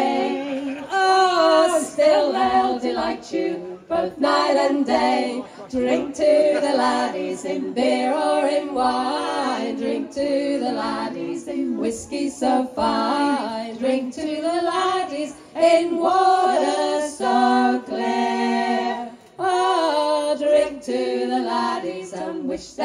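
A group of voices singing a sea shanty together.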